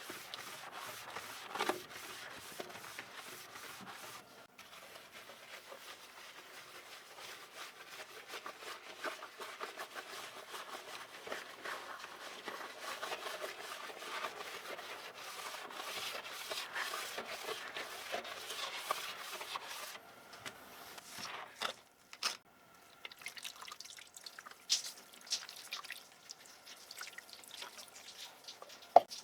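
A dirty keyboard being cleaned by hand: steady scrubbing and rubbing with many small clicks, giving way about two-thirds through to quieter, scattered clicks and knocks.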